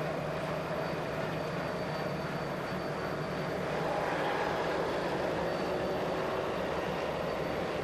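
Steady motor-engine drone from the race vehicles around the riders, with a constant hum and no breaks.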